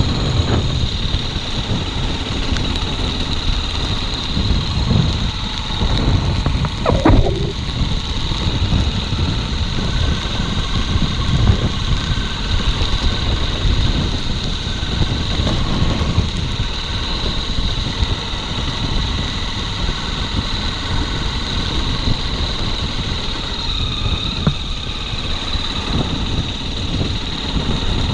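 Motorcycle engine running steadily through a ride, with a dense low rumble and a few brief louder moments.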